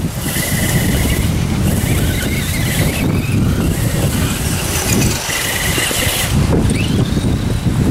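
Wind buffeting the microphone with a heavy fluttering rumble, over the thin high whine of an RC rock crawler's electric motor and gears, which comes and goes twice and rises in pitch as it speeds up near the end.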